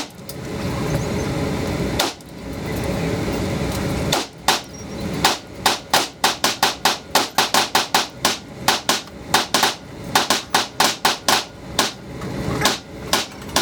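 A string of about thirty 9mm pistol shots from a Glock 45, fired quickly and unevenly at about three a second, starting a few seconds in after a steady rush of background noise.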